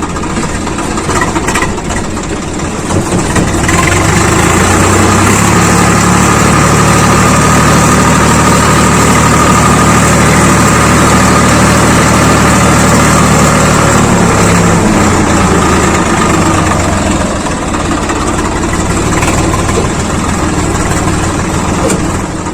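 Swaraj 855 FE tractor's three-cylinder diesel engine running, its revs rising a few seconds in, holding steady and loud, then dropping back about 15 seconds in.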